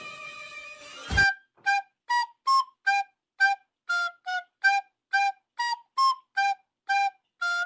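A flute-like wind instrument playing a melody of short, separate notes, about two or three a second, starting just after a sharp hit about a second in. Before the hit, a steady ringing tone fades out.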